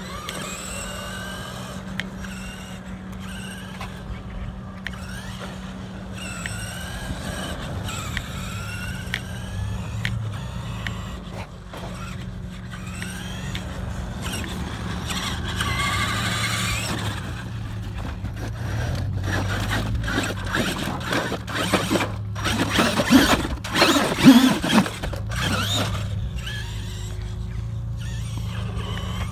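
Traxxas E-Maxx electric RC monster truck driving, its motors whining up and down in pitch as it speeds up and slows, with scattered clicks and scrapes from the tyres and chassis. The loudest, roughest stretch comes about three-quarters of the way through.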